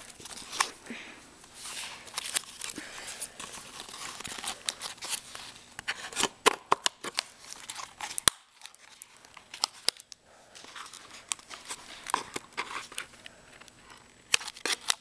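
Scissors snipping and prying at a cardboard packaging tray: irregular sharp snips and clicks with cardboard rustling and scraping, easing off briefly a little past the middle.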